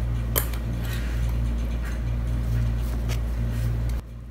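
A steady low hum with a few light clicks, one sharper about half a second in. The hum drops abruptly near the end.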